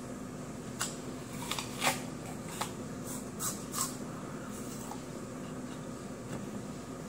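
Bites into a crisp Fuji apple and chewing: several short, sharp crunches, most of them in the first four seconds.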